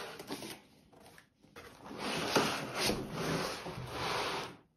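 Packaging being handled as a laptop is unpacked from its box: rubbing and scraping of cardboard and foam. There is a short pause about a second in, then a longer stretch of rubbing.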